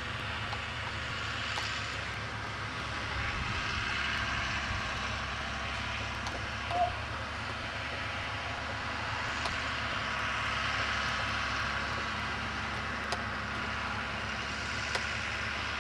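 Steady, even drone of distant farm machinery, a combine harvester and tractor harvesting corn. A brief high note sounds once about seven seconds in.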